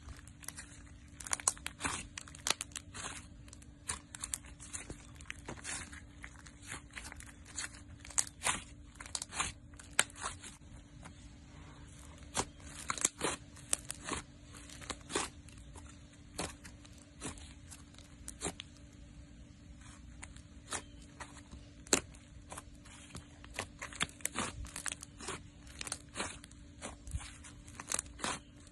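Thick slime being squeezed and kneaded by hand, giving irregular sharp pops and crackles as trapped air bursts from it.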